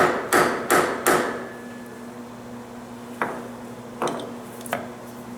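Small hammer striking vice grips clamped on a rusted, seized bolt in a steel valve block, four quick metallic blows about three a second, then three lighter clanks. The sharp blows are meant as shock loads to break the corroded threads free.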